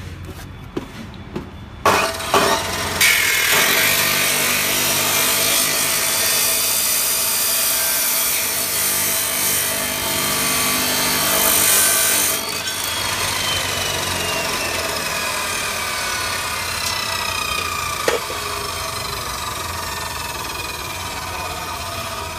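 Abrasive chop saw with a 14-inch cut-off wheel starting up about two seconds in and grinding through a metal bar, a loud harsh cutting noise that lasts about ten seconds. After the cut ends, the wheel's whine falls slowly in pitch as it spins down, with a single knock along the way.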